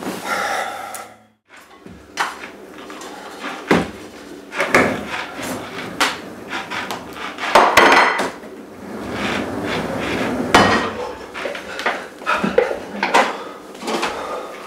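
Kitchen clatter: dishes, pans and cutlery knocking and clanking in a string of separate hits while pancakes are made.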